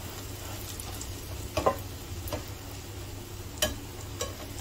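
Beaten egg and toast frying in a pan with a steady soft sizzle, and a few light clicks of a spatula against the pan.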